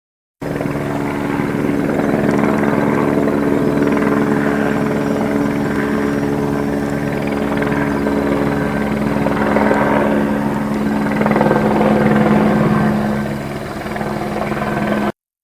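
Helicopter flying: rapid rotor-blade chop under a steady, multi-tone engine and rotor drone. It cuts in abruptly about half a second in, eases slightly near the end, then cuts off suddenly.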